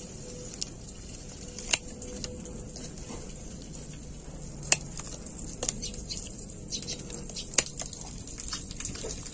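Dry roots and twigs rustling and snapping as they are handled, with three sharp snaps a few seconds apart and a few fainter ticks.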